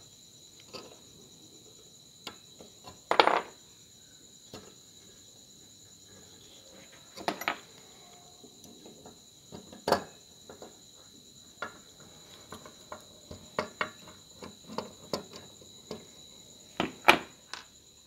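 Irregular small metallic clicks, taps and clinks of a screwdriver, pliers and power transistors handled against an aluminium heatsink and the bench, while power transistors are fitted to the heatsink; the loudest knocks come about three seconds in and near the end. A steady high-pitched tone runs underneath.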